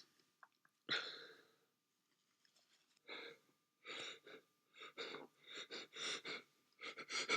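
A person's short, faint catching breaths, coming quicker and closer together toward the end: the build-up to a sneeze, from someone with a cold. A single short breath comes about a second in.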